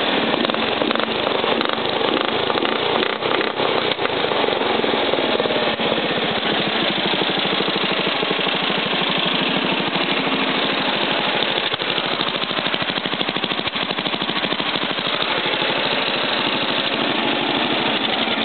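Montgomery Ward lawn tractor's 11 hp Briggs & Stratton single-cylinder engine running with no muffler, its exhaust let out through open pipes under the footboards: a loud, rapid, steady popping.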